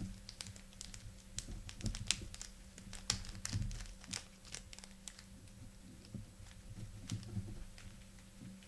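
Small clear plastic parts bag crinkling and crackling as fingers work it open and pick out small parts. The crackles come thick for about the first four seconds, then thin out to a few.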